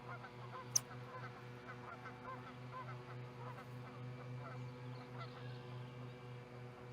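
Many distant birds calling at once in short rising-and-falling notes, over a low hum that pulses a few times a second. One sharp click stands out about a second in.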